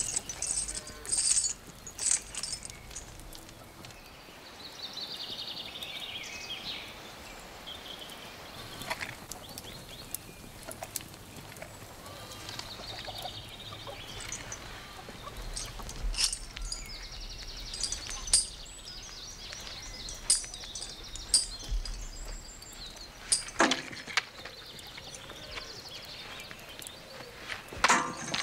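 Birds chirping and trilling throughout, with a few sharp knocks, the loudest near the end.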